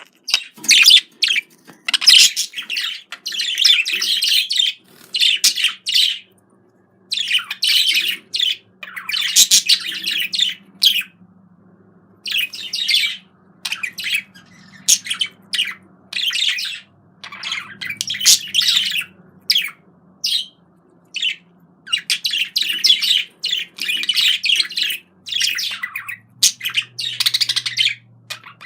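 A bird singing a fast, chattering warble in repeated phrases of about one to two seconds, with short pauses between them.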